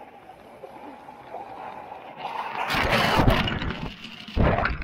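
Small waves washing in over a pebble beach, with a wave surging over the camera at the waterline about two and a half seconds in, loudest around three seconds, and a second short surge near the end.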